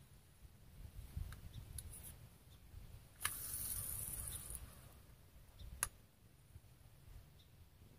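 Handling of a spincast fishing reel and rod: a few faint ticks, a hiss lasting about a second and a half a little after three seconds in, and one sharp click near six seconds, over a low rumble.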